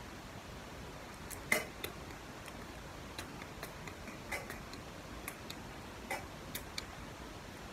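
Scattered light clicks and taps of small items being handled, irregularly spaced, the loudest about a second and a half in, over faint steady hiss.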